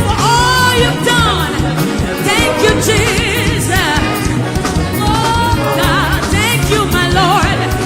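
Gospel worship music: a band with a strong, steady bass under voices singing with a wavering vibrato.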